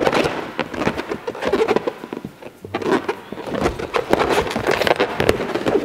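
Inflated red latex balloons in a five-balloon cluster squeaking and rubbing against each other and against hands as they are handled, in many quick irregular squeaks and rubs.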